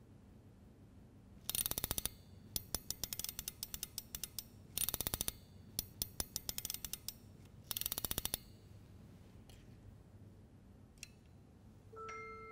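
Cylinder music box being wound with its lever: the spring ratchet clicks rapidly in three dense bursts, with slower clicking between them. Right at the end the steel comb starts to play its first chiming notes.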